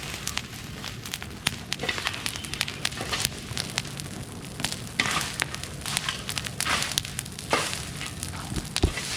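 Bonfire of dry cleared bush and brush burning, crackling with irregular sharp pops and snaps over a steady hiss of flames.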